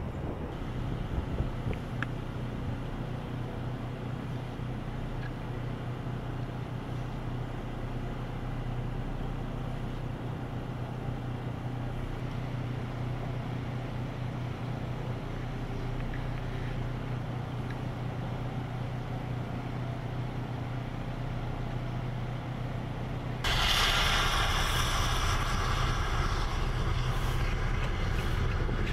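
An engine running steadily with a low hum. About 23 seconds in, a louder rushing, hissing noise cuts in abruptly and continues.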